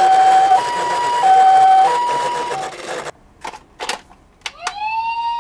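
Toy ambulance's electronic two-tone siren, alternating a high and a low note, cutting off about three seconds in. A few sharp clicks follow, and near the end a second toy ambulance's siren starts with a tone that rises in pitch and settles into a steady note.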